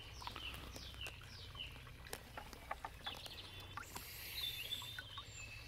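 Small birds calling with quick falling chirps, several in a row and then again a few seconds later, over light drips and splashes of water as a small carp is lifted from a bucket by hand.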